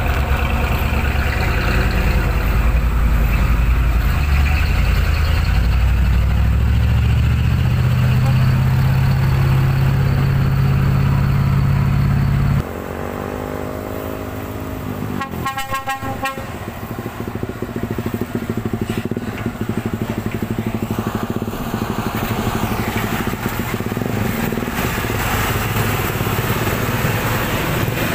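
Heavy diesel truck engine running loud and close, its pitch rising as it pulls harder about a third of the way in, then cutting away abruptly near the middle. A vehicle horn toots briefly a few seconds later, followed by steadier, quieter road traffic.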